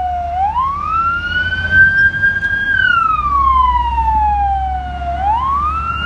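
Ambulance siren wailing. Its pitch climbs quickly, holds high, then slides slowly back down, and the cycle repeats about every five seconds over a low rumble.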